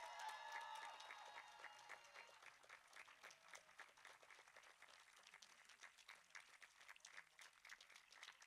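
Faint audience applause, many hands clapping unevenly, thinning out and getting quieter as it goes.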